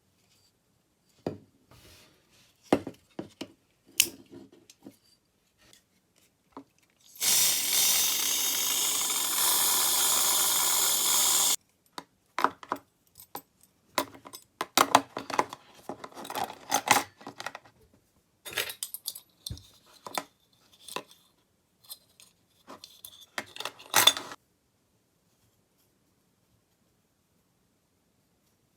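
Small metal parts of an old pocket balance being handled and worked at the bench: scattered clicks, taps and scraping. About seven seconds in, a loud steady rushing noise starts and runs for about four seconds before stopping abruptly.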